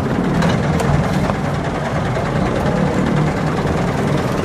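Diesel engine of a stuck Mitsubishi Canter dump truck running steadily in deep mud, a low wavering drone, with a few faint knocks in the first second and a half.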